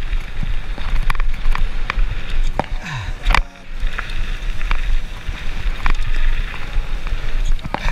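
Mountain bike riding down a rough bike-park trail: a steady low rumble of wind and tyres, with frequent sharp clacks and rattles from the bike over the bumps.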